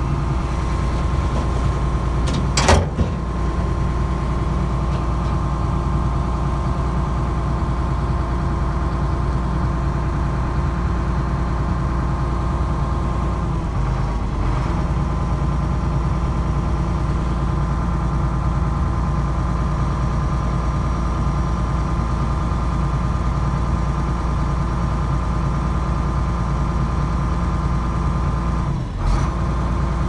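Excavator's diesel engine running steadily at an even pitch, with a sharp metallic clank about three seconds in and another brief knock near the end.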